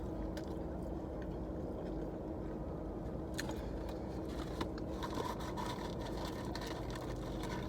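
Steady low hum and rumble inside a car, with a few faint clicks.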